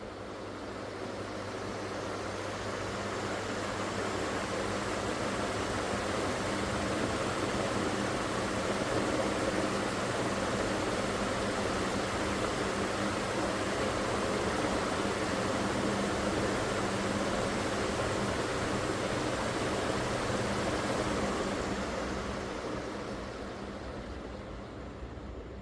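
Ceiling fan running, a steady rush of moving air with a faint low hum, building up over the first few seconds and dying away near the end.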